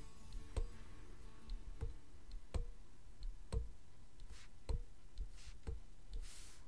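Stylus tapping on a drawing tablet: sharp clicks at irregular intervals of about a second, with three short scratchy pen strokes in the second half.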